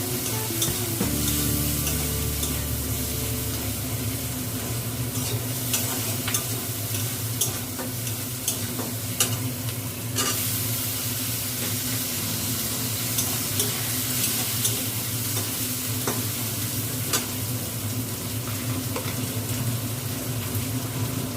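Onions frying in hot oil in a pan with a steady sizzle, stirred with a spatula that clicks and scrapes against the pan now and then. This is the stage of browning the onions before the spices go in.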